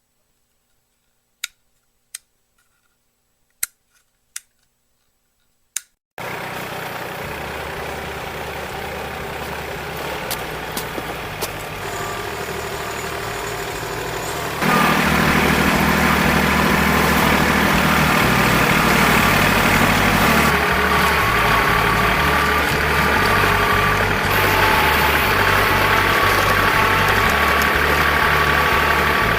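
A few sharp clicks in near silence, then the Kubota L2501 tractor's three-cylinder diesel engine is heard running steadily from about six seconds in, getting louder about 15 seconds in.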